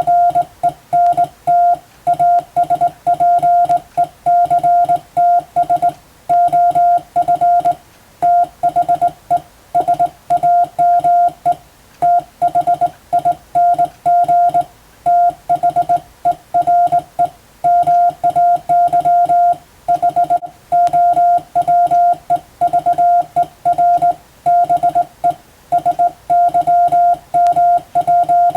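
Morse code (CW) tone keyed in a continuous run of dots and dashes: a single steady tone switching on and off in short and long marks, sending English-letter practice text.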